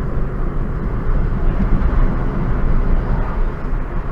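Steady road and engine noise inside a moving car's cabin, a low rumble that carries on unchanged.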